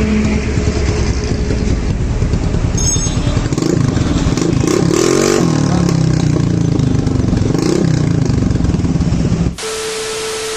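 A motorbike engine running loudly, revving up and down a few times from about four seconds in and again near eight seconds. Near the end it cuts off and a steady tone over a hiss takes over for about a second.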